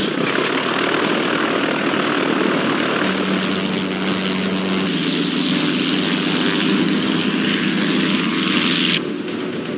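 Single-engine floatplane's engine and propeller running at high power with a steady drone during a takeoff run over the water. The sound drops abruptly to a quieter level near the end.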